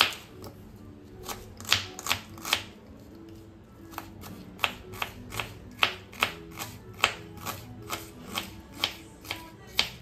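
Kitchen knife chopping an onion on a wooden cutting board: sharp irregular knocks of the blade against the board, about two to three a second, with a short pause early on and the loudest stroke at the start. Soft background music plays underneath.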